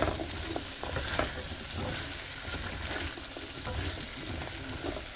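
Cut pumpkin frying with curry paste, onion, tomato and garlic in a pan, a steady sizzle, with a utensil clicking and scraping against the pan now and then and one sharp knock near the end.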